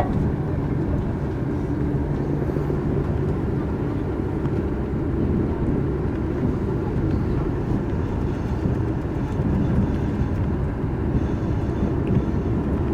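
Steady low rumble of a TGV Lyria high-speed train running, heard from inside a passenger carriage.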